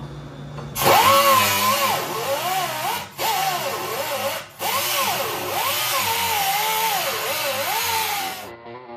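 Power drill running under load as it bores through the sheet-steel floor pan of a 1932 Ford sedan body, its whine rising and falling as the bit bites. It starts about a second in, pauses briefly twice, and stops just before the end.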